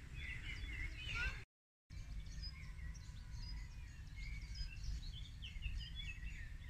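Several small birds chirping and singing in short, repeated phrases over a steady low rumble. The sound cuts out completely for a moment about a second and a half in.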